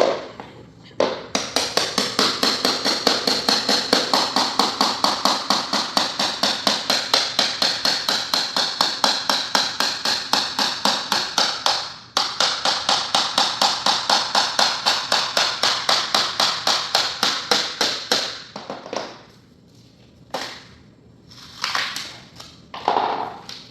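Fast, even mechanical tapping of a tool working a laminate floor plank, about four to five strikes a second for some seventeen seconds, with a brief break partway. A few separate knocks follow near the end.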